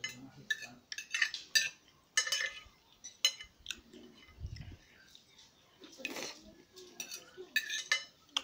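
Metal fork and table knife clinking and scraping on a plate while cutting soft gelatin, in many short, irregular taps.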